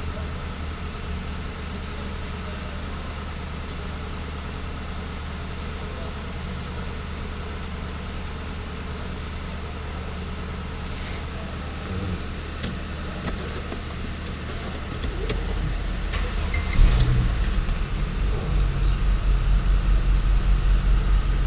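A car engine runs with a steady low hum. About fifteen seconds in, a deeper, pulsing engine sound comes in and grows louder, with a brief louder peak a little later.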